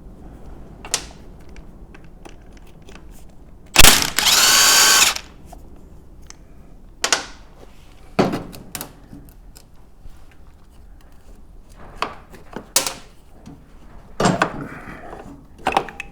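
A power drill runs once for about a second, its motor whine rising in pitch, amid scattered clicks and knocks of tools and parts being handled.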